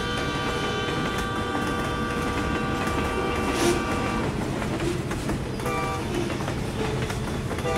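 Freight train horn sounding a chord over the low rumble of the passing train: one long blast lasting until about four seconds in, a short blast about six seconds in, then another long blast starting near the end.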